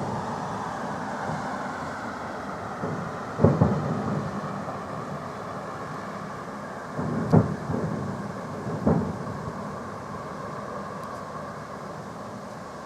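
Fireworks salute shells bursting overhead in deep booms that echo and rumble away: two close together about three and a half seconds in, then a quick run of several more around seven to nine seconds in, over a steady low rumble.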